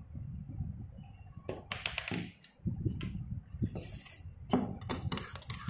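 Scattered taps and knocks of a stainless steel bowl and the metal spoon in it being handled on a wooden table, growing denser near the end as the bowl is gripped for stirring.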